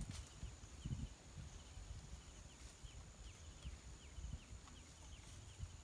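Quiet outdoor ambience: faint short chirps repeating about twice a second over a steady thin high whine, with low rustling and soft thumps from sugar apple tree branches being pulled by hand.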